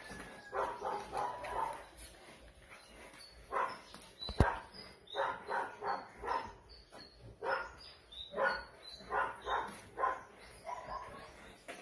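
Two-month-old Belgian Tervuren puppies barking in repeated short barks while play-fighting. A single sharp click a little over four seconds in is the loudest sound.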